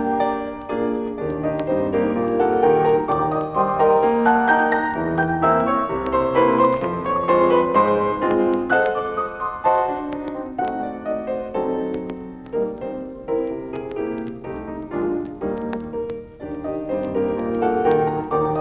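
Solo piano accompaniment for a silent film, playing a busy run of notes.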